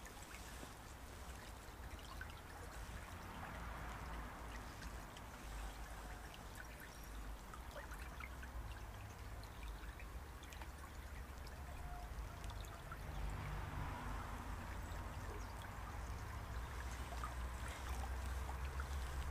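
Small stream running, a faint, steady trickling of water.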